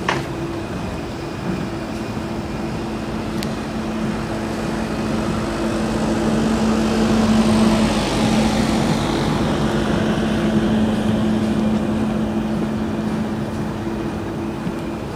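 Passenger train running slowly, heard from an open carriage window: a steady low hum with rushing wheel and wind noise that swells louder about halfway through and then eases off.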